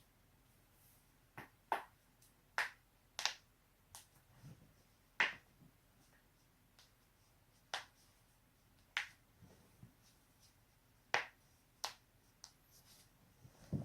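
Joints of the neck and back being cracked: about a dozen sharp pops at irregular intervals, a few coming in quick pairs.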